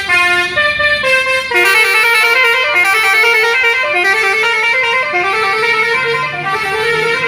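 Bus 'telolet basuri' musical horn playing a tune: a quick run of stepped notes, several sounding at once, loud and steady.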